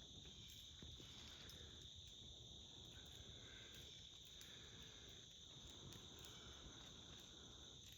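Faint, steady chorus of crickets, a continuous high-pitched trill with no breaks.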